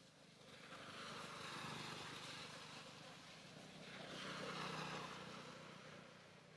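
Faint engine noise of a passing motor vehicle, with a low steady hum under a whooshing rush that swells about a second and a half in, dips, swells again around four to five seconds in, and then fades.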